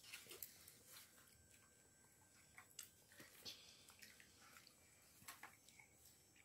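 Near silence, with a few faint, scattered clicks of chewing from someone eating a burger.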